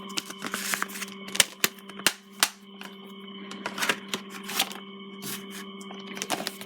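Irregular sharp plastic clicks and taps from a Blu-ray case and its discs being handled, over a steady electrical hum.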